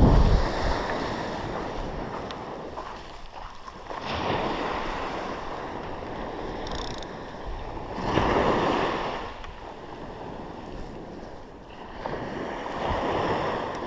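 Sea waves breaking and washing up the beach, swelling in surges about every four seconds, with wind buffeting the microphone.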